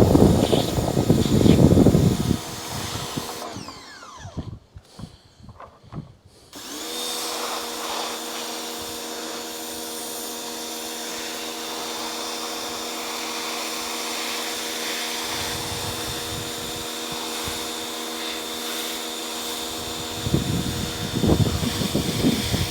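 An electric power tool's motor running, then stopping and winding down a few seconds in. About seven seconds in it starts again and runs steadily, with rougher, louder stretches where it works against the part.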